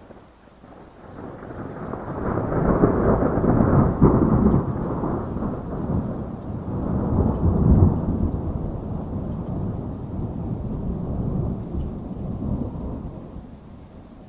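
A long roll of thunder that builds over the first couple of seconds, rumbles on with two peaks, and fades away near the end, over steady rain.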